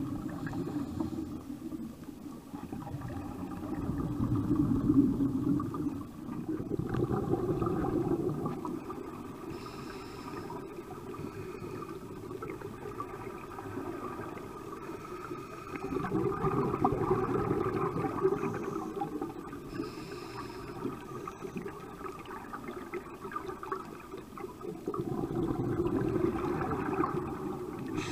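Underwater audio of scuba regulators: bursts of exhaled bubbles gurgling for two to three seconds at a time, about four times, over a steady faint drone.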